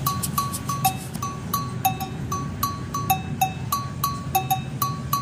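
Background music: a quick, even pattern of struck, pitched percussion alternating between a higher and a lower note, about three strikes a second, over a low hum.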